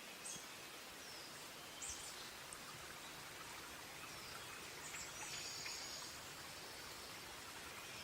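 Wood fire burning: a soft, steady hiss with a few sharp crackles and pops of the firewood.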